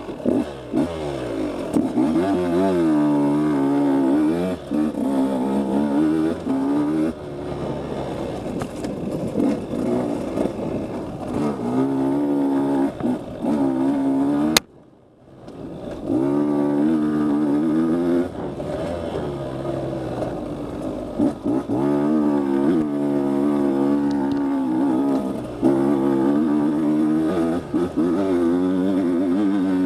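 Dirt bike engine pulling up a trail climb in second gear through a Rekluse Core automatic clutch, its revs rising and falling again and again as the throttle is rolled on and off. About halfway through there is a sharp click and roughly a second of near-quiet before the engine sound returns.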